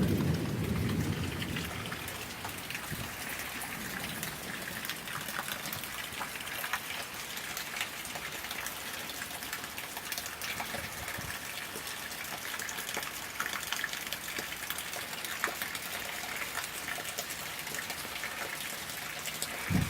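Steady rain from a summer thunderstorm, with many separate drops ticking close by. A low rumble fades away in the first second or two.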